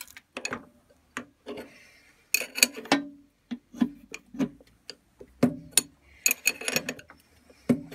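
Irregular metal clicks, clinks and knocks from a spanner on a lathe chuck jaw as the chuck is turned by hand to run a die down silver steel, backing the die off from time to time. Some knocks ring briefly.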